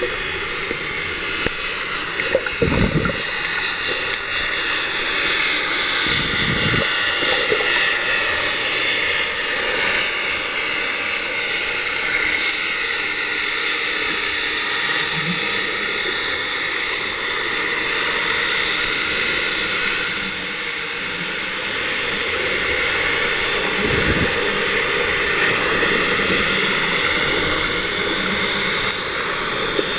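Steady rushing water noise picked up by a camera underwater in its waterproof housing, with a few dull low thumps.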